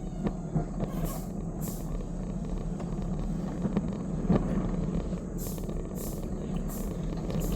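Engine of a small railroad locomotive running steadily as the train moves along, with scattered clicks and knocks and occasional short high hisses.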